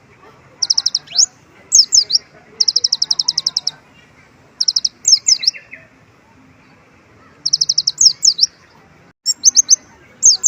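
A kolibri ninja sunbird singing in repeated high-pitched phrases: rapid even trills of short notes alternating with quick downward-slurred whistles, with a longer pause about two-thirds of the way through. The song is filled with imitated white-eye (pleci) phrases.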